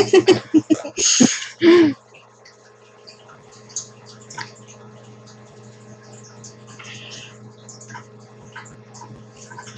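Muffled giggling and breathy snorts from people holding lemon slices in their mouths, loud for about the first two seconds. Then a low steady hum with faint scattered ticks and breaths.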